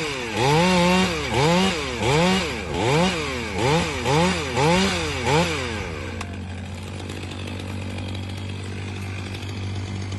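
Gasoline chainsaw revved up and down in about eight quick throttle pulses over six seconds, each rising and falling in pitch, then settling to a lower steady running hum.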